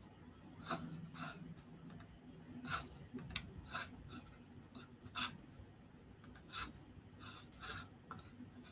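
Faint irregular clicks and short scratchy ticks, about a dozen, unevenly spaced, over a low steady hum.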